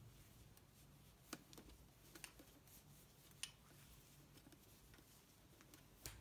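Near silence with a few faint, irregular clicks from knitting needles and a stitch holder as stitches are slipped off the needle onto the holder.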